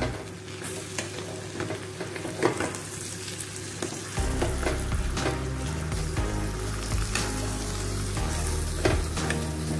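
Metal spoon stirring thick egusi soup in an enamel pot, with irregular scrapes and clicks against the pot, over the soft sizzle of the egusi frying in oil.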